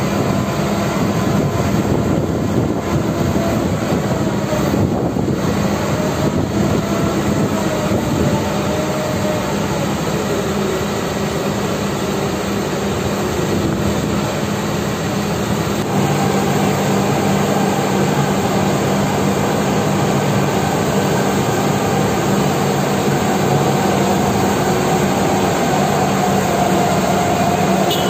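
Heavy diesel hydraulic construction machinery running steadily and loudly, with a whine that drifts up and down in pitch. About halfway through the note steps up and gets slightly louder.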